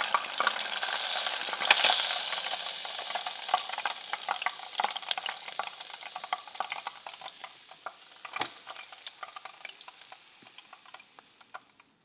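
Hot oil sizzling and crackling with scattered pops around a walleye fillet deep-frying in a small fryer pot. The sizzle fades steadily toward the end, with a single sharper knock about eight seconds in.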